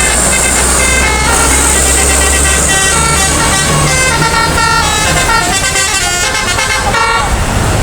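A bus's Basuri telolet musical air horn playing a quick tune of stepped notes, several tones sounding at once, stopping about seven seconds in. The bus's engine rumbles underneath, heaviest in the first few seconds.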